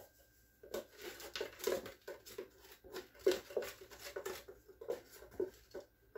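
Soaked cashews being shaken out of their container: a quick, irregular patter of small soft knocks, starting about a second in.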